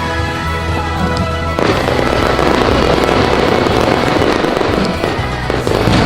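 Aerial fireworks crackling and popping, thickening into a dense crackle about two seconds in, with a sharp bang near the end, over loud music with a steady bass line.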